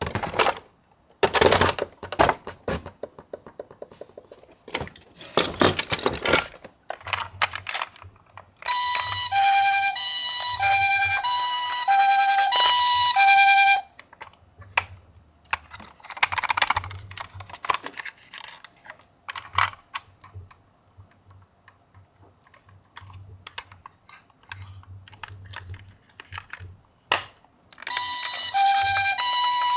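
Toy ambulances handled and set rolling, with sharp plastic clicks and rattles. A toy ambulance's electronic siren plays a stepped beeping tone pattern for about five seconds, and starts again near the end.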